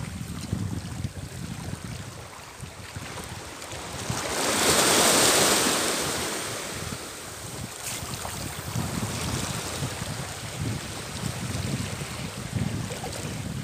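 Small sea waves washing against a stony shoreline, with wind rumbling on the microphone; a louder rushing swell comes and goes about five seconds in.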